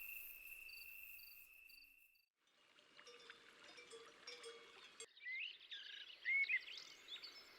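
Faint natural ambience: a steady insect trill, cricket-like, stops about two seconds in. After a brief hush, a few soft bird chirps come in the second half.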